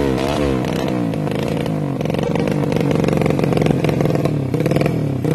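Race-tuned Yamaha Jupiter Z grasstrack motorcycle's four-stroke single-cylinder engine being revved. The revs drop off in the first half-second, are then held steady and high for a few seconds, dip briefly near the end and pick up again.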